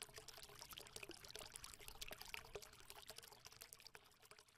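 Very faint, irregular crackle of tiny clicks, like a thin trickle, fading out about four seconds in.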